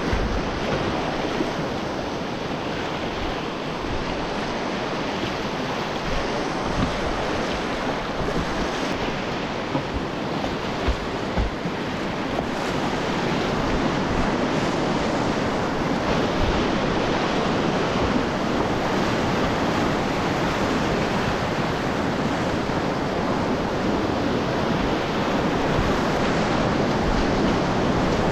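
Whitewater river rapids rushing steadily around a kayak, with a few brief low knocks near the middle.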